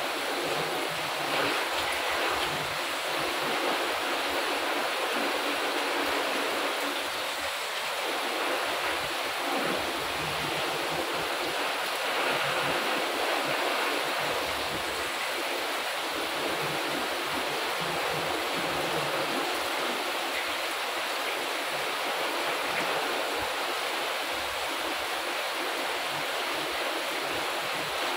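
Heavy rain pouring down steadily, a dense, even hiss that keeps the same level throughout.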